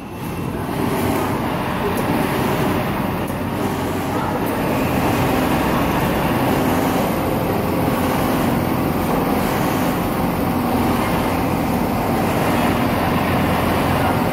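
Richpeace CNC template sewing machine running steadily while it sews a coat collar, a continuous dense mechanical noise of motor and stitching.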